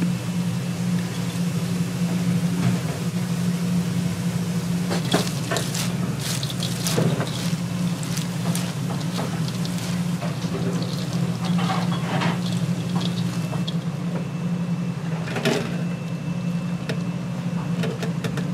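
Restaurant kitchen noise: a steady low hum with scattered clinks and knocks of cookware.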